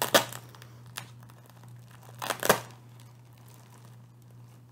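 Clear plastic bag around balls of chunky yarn crinkling as it is handled and opened, in two short bursts: one at the start and one about two and a half seconds in.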